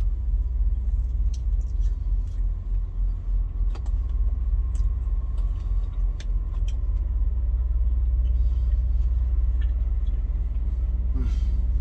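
Deep, steady rumble of a semi truck's diesel engine idling, heard from inside the cab. It turns steadier and a little louder about halfway through.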